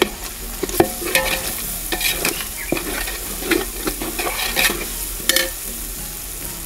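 A ladle stirring and scraping a pot of spiced onion-tomato masala frying in oil, with a steady sizzle and irregular clacks of the ladle against the pot.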